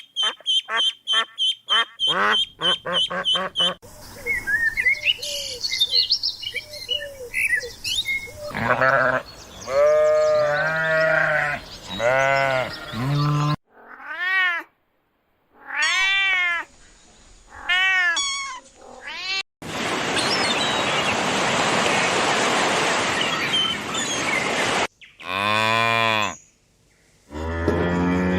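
A string of different animal calls, one clip after another: quick repeated quacking at first, then a series of rising-and-falling calls from farm and pet animals, a long harsh noisy call in the second half, and a cow lowing near the end.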